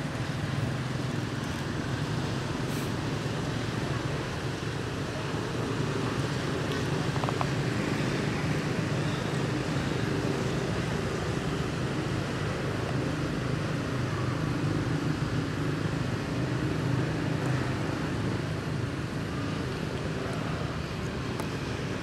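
Steady rumble of road traffic as outdoor background noise.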